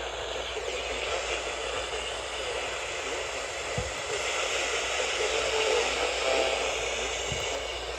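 Radio static: a steady hiss from a radio receiver picking up a weak or empty signal, with two soft low thumps partway through.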